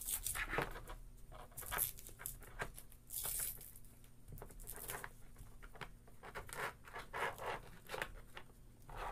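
Unpacking by hand: irregular rustling and scraping of packaging, with a longer tearing rustle about three seconds in.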